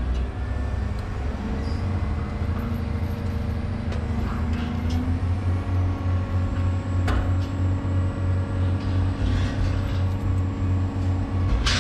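Excavator diesel engine and hydraulics running under load, heard from inside the operator's cab while the machine lifts a heavy steel shoring panel on chains. The hum shifts in pitch and grows a little louder partway through, with a few sharp knocks, the clearest about seven seconds in.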